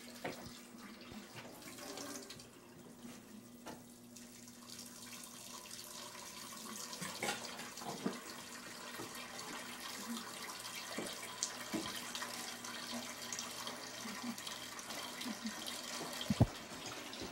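Kitchen tap running into a stainless-steel sink, with dishes clinking and knocking against it and one sharp clunk near the end.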